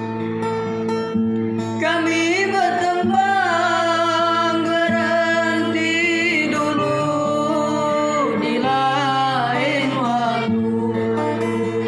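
Batang Hari Sembilan folk song: a steady acoustic guitar accompaniment, joined about two seconds in by a singer's ornamented, wavering melodic line that ends shortly before the close, leaving the guitar alone.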